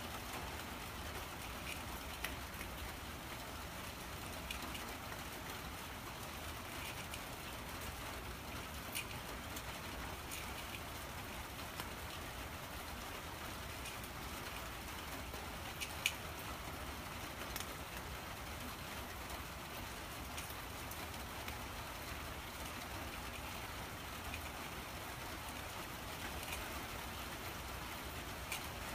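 Cat eating wet food from a small metal dish: scattered soft, wet chewing clicks over a steady hiss, with one sharper click about 16 seconds in.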